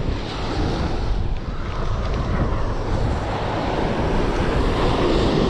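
Wind buffeting the microphone over the steady wash of ocean surf breaking on the beach.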